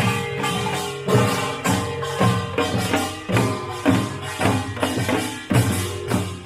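Music with a steady beat, about two beats a second, with light percussion over pitched instruments.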